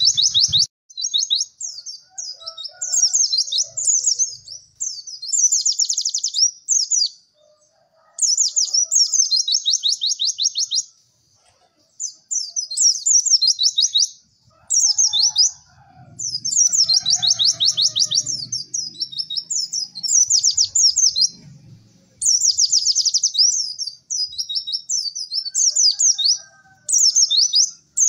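Pleci (white-eye) song: rapid, high-pitched twittering trills in bursts of one to two seconds, repeated with short pauses between them.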